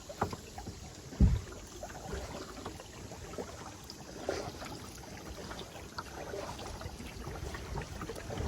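Kayak paddle strokes dipping into the water with small splashes and drips, and one dull knock about a second in.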